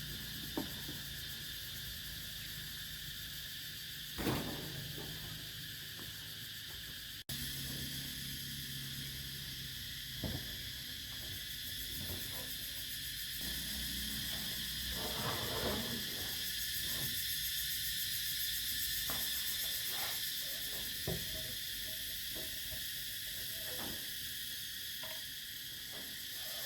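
Steady high-pitched insect chorus, likely crickets, with scattered short knocks and taps.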